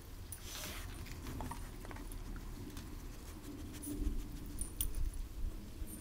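Puppies play-fighting: faint growling and scuffling, with scattered small clicks and a steady low rumble.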